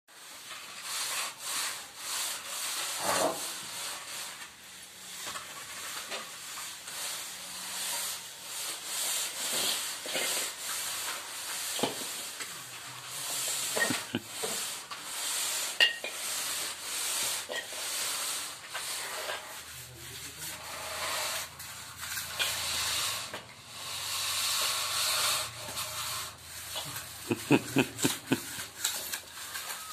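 Loose soil being scraped and spread with a hand tool, a rasping sound in repeated strokes, with a few sharper knocks near the end.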